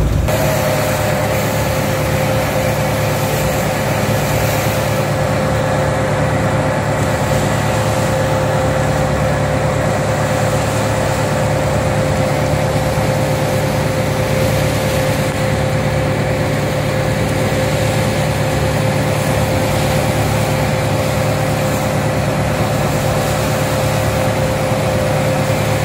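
Tugboat's diesel engine running steadily under load while towing a barge: a continuous low drone with a thin steady whine above it, over a constant rushing noise.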